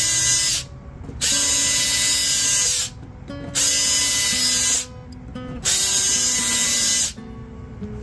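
Power drill run in short bursts, four times, each one to two seconds of steady motor whine, widening the wire holes. Background music plays underneath.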